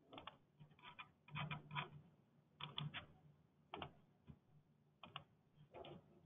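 Faint computer keyboard typing: irregular keystrokes in small clusters, with short gaps between them.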